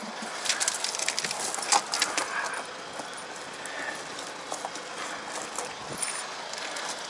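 Steel snow chain links clinking and rattling as the chain is pulled and adjusted around a van's tyre. The clinks come thickest in the first two seconds or so, then turn sparse.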